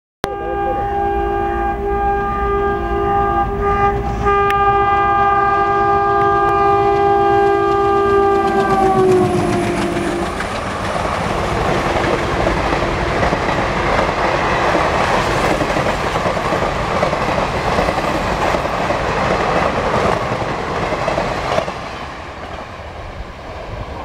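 Air horn of a WDM3A (Alco) diesel locomotive blowing one long, continuous blast for about nine seconds as the train approaches at about 110 km/h, its pitch dropping as the locomotive passes. After that, the coaches rush past with wheels clattering over the rails, fading near the end as the train recedes.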